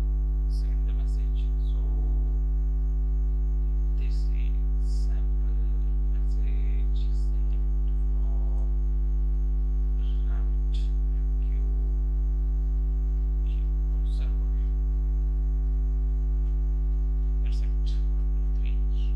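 Steady electrical mains hum on the recording, with a few faint scattered clicks over it.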